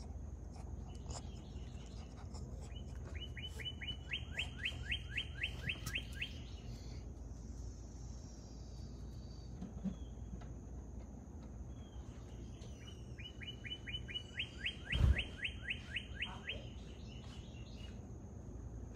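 A songbird singing two phrases, each a rapid run of repeated down-slurred whistled notes, about five a second for some three seconds, roughly ten seconds apart. A faint steady high whine runs underneath, and there is a single low thump during the second phrase.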